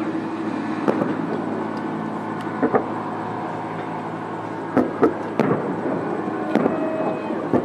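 Aerial fireworks shells bursting overhead: a series of sharp bangs at irregular intervals, some in quick pairs, over a steady low background hum.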